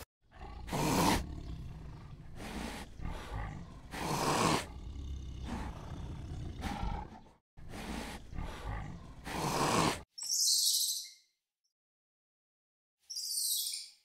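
Tiger roaring and growling: about seven loud calls a second or two apart over a low rumble, cutting off suddenly about ten seconds in. Two short high-pitched chirping bursts follow near the end.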